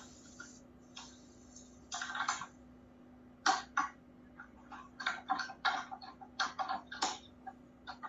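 Irregular light clicks and taps, dense in the second half, with a couple of short rustles, over a faint steady low hum.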